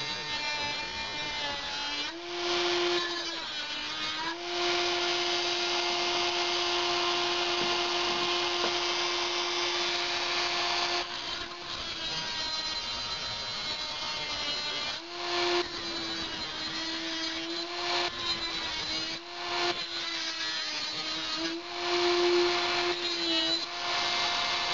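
Dremel rotary tool with a cutoff wheel whining steadily as it cuts through thin sheet metal, with a grinding hiss from the wheel on the metal. The pitch sags each time the wheel is pressed into the metal and bogs down, then picks back up: once a few seconds in and several times in the second half.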